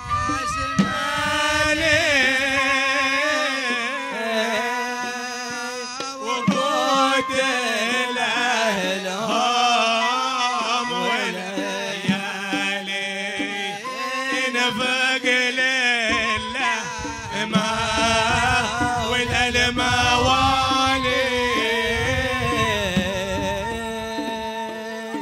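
Male singing of a Hadhrami zarbadi poem, a wavering, ornamented melody over a held low note, with hand-drum strokes underneath.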